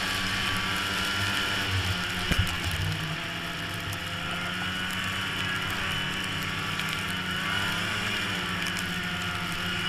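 Snowmobile engine running at a fairly steady speed, with one sharp knock about two and a half seconds in.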